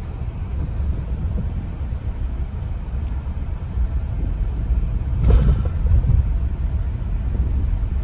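Low, steady rumble of a car's tyres and suspension heard from inside the cabin, driving slowly over a rough, wet dirt road, with a louder thump about five seconds in.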